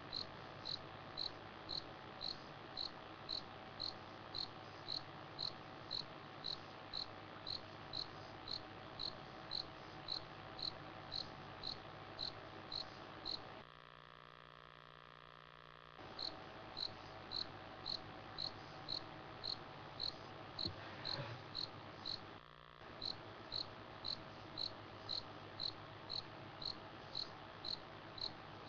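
A cricket chirping steadily, about two short high chirps a second, over a steady low hum. The sound drops out for about two seconds midway and again briefly a little later.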